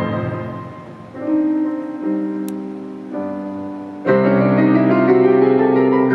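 Slow piano chords, each struck and left to ring and fade. About four seconds in, a fuller, louder sustained accompaniment with low bass comes in beneath them.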